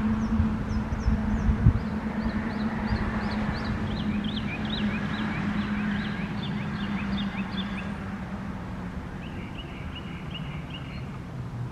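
Birds chirping in quick runs of short notes over a steady low vehicle hum and rumble that slowly fades away.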